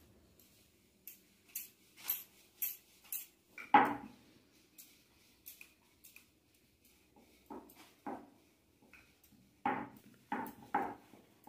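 Wooden rolling pin rolling out dough on a wooden board. A run of light clicks comes about two a second at first, then a sharper knock, then several dull knocks of the pin against the board near the end.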